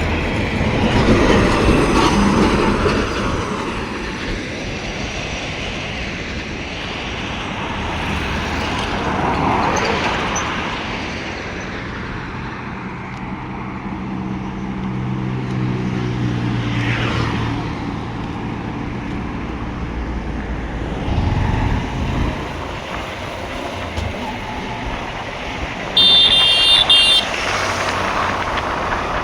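Road traffic: a steady rumble of passing vehicles, with an engine drone standing out partway through. A short vehicle horn sounds near the end.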